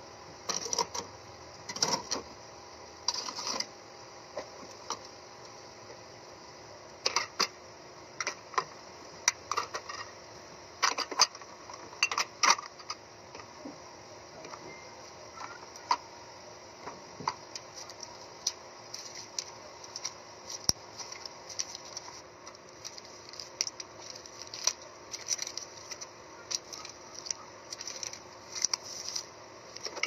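Cans, bottles and plastic containers clinking and tapping as they are set onto the shelves and door racks of a mini fridge, in irregular clusters of sharp clicks over a steady low hiss.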